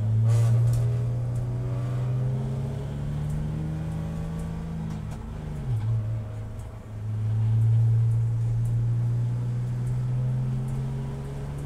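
Race car engine accelerating under load, its pitch climbing steadily. About halfway through it drops sharply as the car shifts up a gear, then climbs again.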